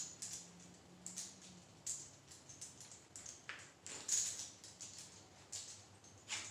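Light, irregular clicks and scrapes of bike parts and tools being handled during a mountain bike build, with a faint low hum underneath.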